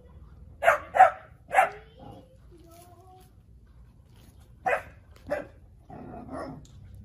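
Dogs barking in short, sharp barks: three in quick succession in the first two seconds, two more about five seconds in, then a rougher, lower sound near the end.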